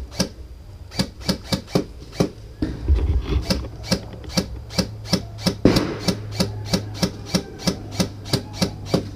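Airsoft gunfire: a steady string of sharp, dry cracks at about four a second, with no let-up.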